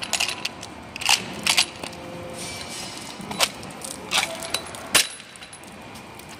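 Metal pipe repair clamp clinking and clicking as its hinged halves and bolts are handled and closed around a pipe: a series of separate sharp metallic clinks, the sharpest about five seconds in.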